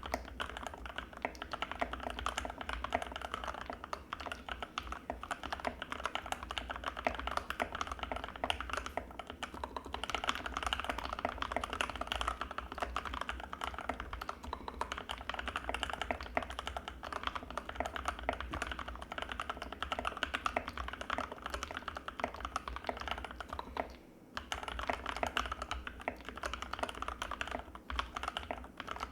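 Continuous fast typing on an Anne Pro 2 mechanical keyboard with Gateron Red linear switches, a dense stream of creamy key clicks. It breaks off briefly near the end, then resumes.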